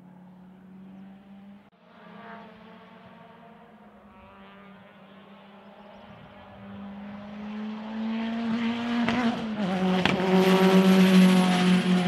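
Toyota Celica race car's engine at high revs, faint in the distance and growing steadily louder as the car approaches. There is a brief break in the engine note about nine and a half seconds in, after which it is at its loudest.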